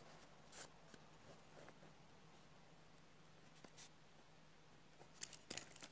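Faint scratching of a pen writing cursive on lined paper: a few soft, brief strokes, with a small cluster of them about five seconds in.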